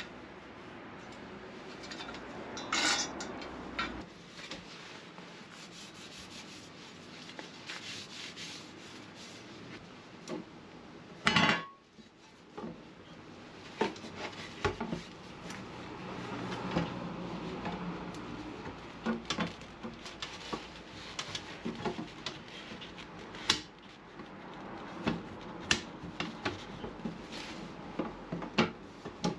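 Scattered metal clinks and knocks with some rubbing, as pieces of metal and wood are handled. One louder clatter comes about eleven seconds in.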